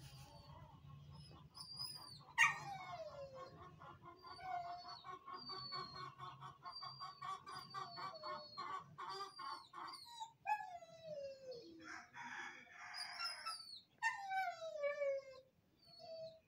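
Birds calling: many short high chirps and whistles, a rapid trill that runs for several seconds early on, and a few louder calls that slide down in pitch, with domestic fowl among them.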